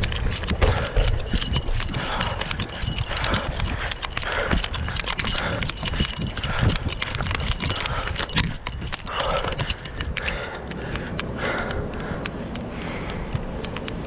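Footsteps on a concrete path picked up close by a chest-mounted action camera: a run of rhythmic knocks, with rustling and scraping from the body and camera mount moving.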